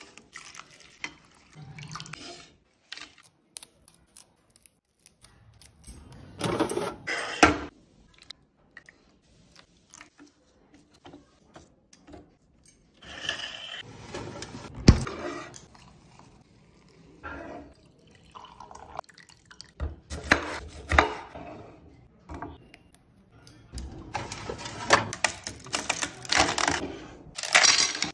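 Kitchen preparation sounds: water pouring and dripping in spells, broken up by knocks and clinks of dishes, with one sharp knock about 15 seconds in. Ice cubes clink near the end.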